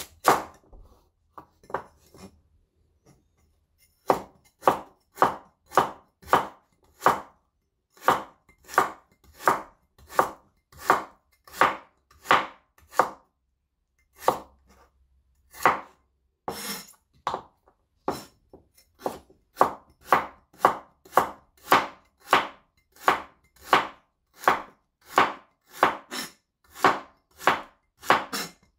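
A knife chopping a carrot on a chopping board: sharp, crisp chops at about two a second, with only a few scattered cuts at first and a brief pause about halfway through.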